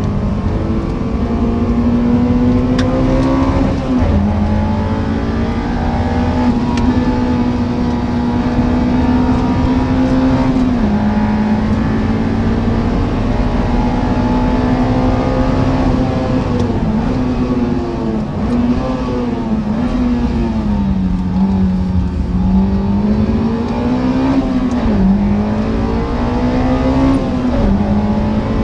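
Honda S2000's four-cylinder engine heard from inside the cabin, pulling hard at high revs on track. Its pitch climbs and then drops sharply at gear changes, then rises and falls again and again as the car brakes and accelerates through the corners.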